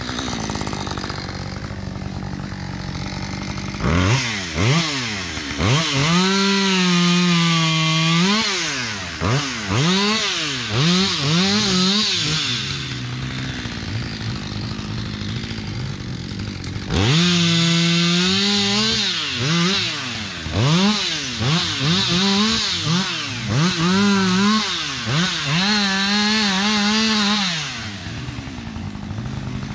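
Petrol chainsaw idling, then revved up and down again and again as it cuts through branches of a felled tree. It drops back to idle for a few seconds about halfway through, then resumes the repeated revving.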